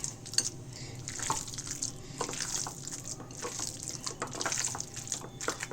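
A hand squishing and kneading wet, marinated ground chicken paste, giving irregular squelches and small sticky smacks.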